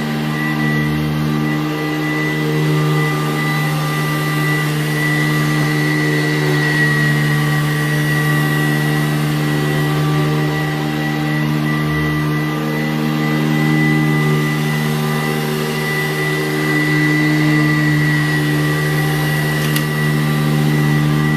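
Sanitaire SC887B-2 commercial upright vacuum cleaner running steadily: its 7-amp Ametek Lamb motor gives a low hum with a high whine over it.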